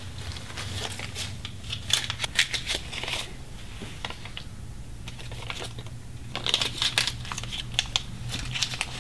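Small wrapper crinkling as it is handled in the hands: two spells of quick crackles, about a second in and again after about six seconds, over a low steady room hum.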